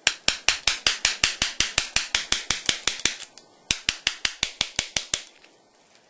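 Bump hammer tapping rapidly on a bump key in a pin-tumbler lock, sharp metallic taps about eight a second, in two runs split by a short pause about three seconds in. This is lock bumping under turning pressure, knocking the pins so the cylinder turns and the lock opens.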